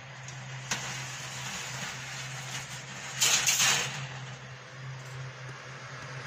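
Commercial food dehydrator running with a steady hum and an even rush of fan air. There is a sharp click about a second in and a brief, louder rushing noise around the middle.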